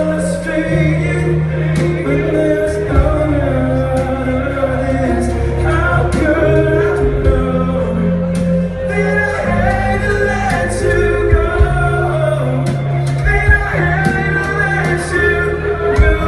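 Live band playing an acoustic set: a man singing into a microphone over guitar, bass and percussion, with the reverberation of a large hall.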